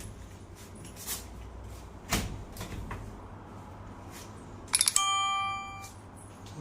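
A couple of dull knocks, then a quick run of clicks and a single electronic beep that rings for about a second and fades, as from the control panel of an LG front-load washing machine when a button is pressed.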